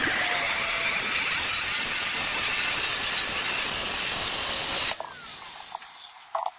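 Angle grinder's cut-off wheel cutting through a metal shaft: a loud, steady grinding hiss with a high motor whine. It stops suddenly about five seconds in, and the motor winds down.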